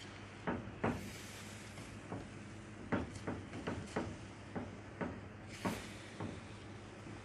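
Silicone spatula stirring cocoa powder into condensed milk in a nonstick frying pan: irregular knocks and scrapes of the spatula against the pan, over a steady low hum.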